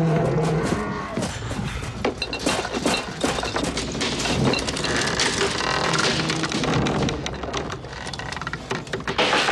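Film sound effects of a dense run of heavy thuds, cracks and breaking, with low sustained tones under them.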